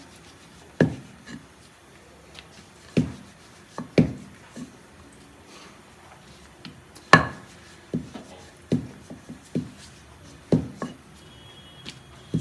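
Wooden rolling pin knocking and rolling on a stone rolling board as thin dough rounds for momo wrappers are rolled out. It gives irregular sharp clacks about a second apart, the loudest about seven seconds in, with faint rubbing between them.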